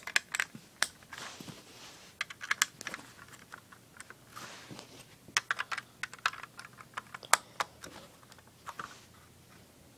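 Plastic Lego bricks clicking and rattling as a hand handles a built Lego truck: irregular sharp clicks in quick clusters, which stop about a second before the end.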